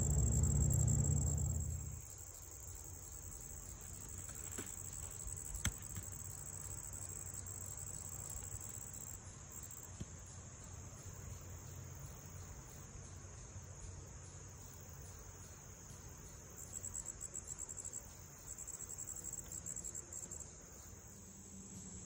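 Steady high-pitched chirring of an insect chorus, with a faster pulsing trill joining in for a few seconds near the end. A loud low hum runs through the first two seconds and cuts off suddenly, and there is one sharp click about six seconds in.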